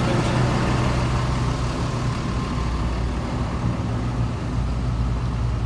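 Ford F650 diesel engine idling steadily.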